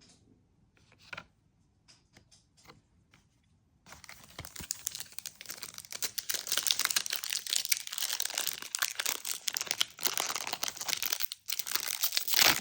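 Foil wrapper of a trading-card pack being torn open and crinkled. It starts about four seconds in, after a few light clicks of handling, and keeps crackling, with a brief pause near the end.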